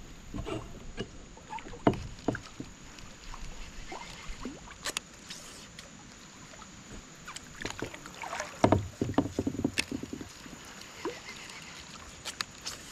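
Kayak paddling: the paddle dipping and splashing in the water, with scattered sharp knocks against the kayak and gear, busiest about nine seconds in.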